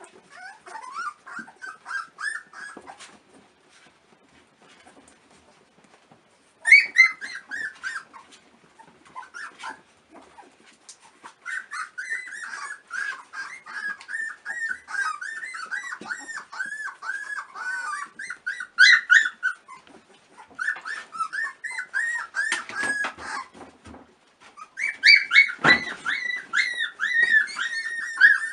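A litter of newborn puppies squeaking and whimpering, many short high cries overlapping one another. They fall nearly quiet for a few seconds early on, then pick up again. A single low bump sounds near the end.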